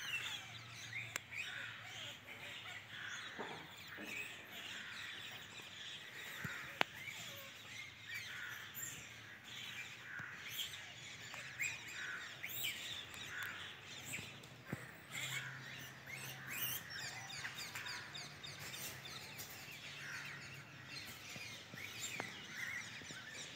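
Outdoor bird calls: many short chirps and calls, overlapping throughout, with a single sharp click about seven seconds in.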